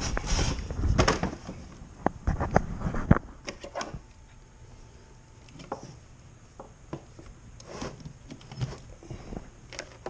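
Handling noise of hard plastic gear being shifted and knocked about, with several sharp knocks in the first few seconds, then fainter scattered clicks as a charger plug is pushed into a wall outlet.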